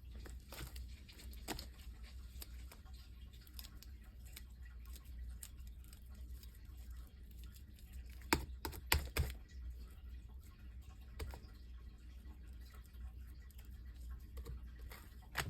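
Sticky, wet slime dough being squished and kneaded by hand, giving scattered small clicks and pops, with a louder cluster of them about eight to nine seconds in.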